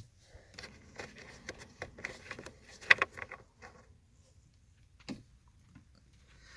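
Screwdriver working a loose screw out of a car's plastic instrument cluster housing: a run of small clicks and scrapes, then a single knock about five seconds in.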